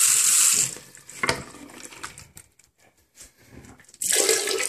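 Tap water running into a sink as a plastic printer toner waste bin is filled and rinsed under it; the flow stops less than a second in, leaving small splashes and knocks of the wet bin being handled. Near the end a loud rush of water starts in a toilet bowl.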